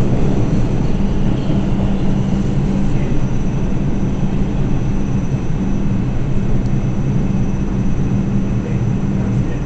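Interior of a New York City Subway R142 car running: a steady, loud rumble of the train in motion, with a constant low hum.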